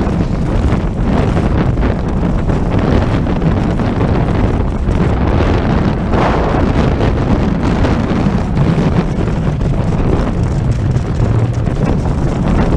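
Wind rushing over the microphone of a camera carried by a moving cross-country skier: a loud, steady rumble of noise with no pauses.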